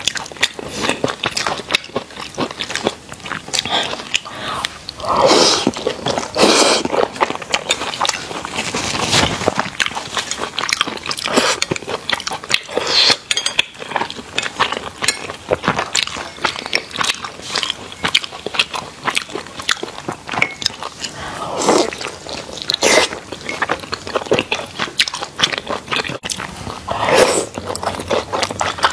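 Close-miked eating of soft boiled dumplings: wet biting and chewing with many small mouth clicks. Louder bites come about five seconds in, again about two-thirds through, and near the end.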